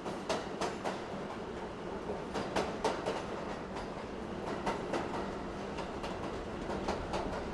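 Subway car in motion, heard from inside the car: a steady rumble of the running train, with recurring quick runs of clacks as the wheels pass over rail joints, a group every couple of seconds.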